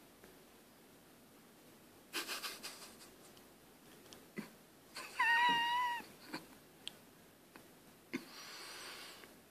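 A domestic cat meows once, a steady call about a second long, roughly halfway through. Scuffling and rustling noises come before and after it, with a few sharp clicks.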